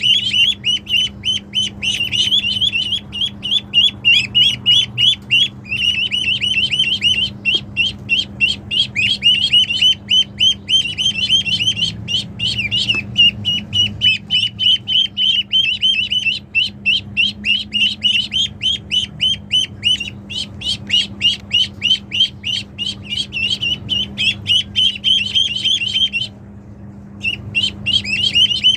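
Ducks calling in rapid, high-pitched runs of short notes, several a second, with a brief break about two seconds before the end.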